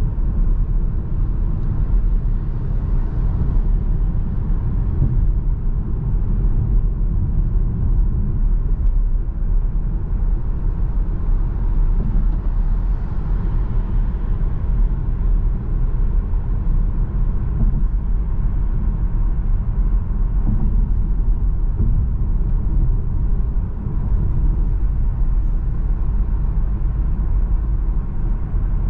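Steady low rumble of road, tyre and engine noise inside a Seat Arona 1.5 TSI on the move.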